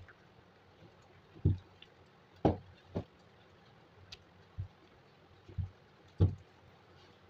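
A wooden rolling pin knocking against the work surface as it rolls out paratha dough: about six dull, irregularly spaced thuds.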